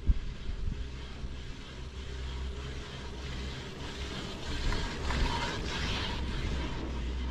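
Riblet center-pole double chairlift carrying its chair past a lattice tower: a sharp knock at the start, then the chair's grip running through the tower's sheave train, louder for about two seconds just after the middle, over a steady low rumble.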